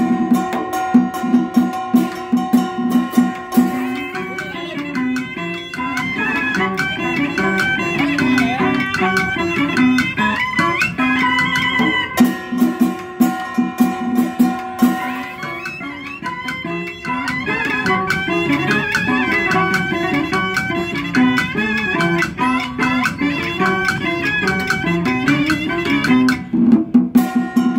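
Vietnamese traditional ceremonial ensemble (Cao Đài nhạc lễ) playing an instrumental piece. Rapid drum and percussion strokes over held tones near the start and the end; in between, a sliding, ornamented melody over the beat.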